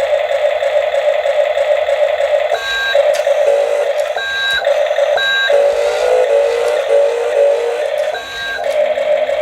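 Electronic sound effects from a toy RC forklift's small built-in speaker: a steady buzzing tone cut by short high beeps every second or so, with a short run of falling tones in the middle.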